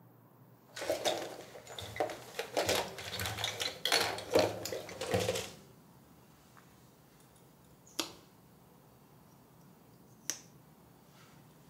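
Small hard items such as cosmetic bottles and jars clattering and clinking for about five seconds as they are rummaged on a bathroom counter, then two single sharp clicks a couple of seconds apart.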